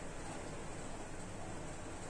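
Steady background hiss with no distinct sound event.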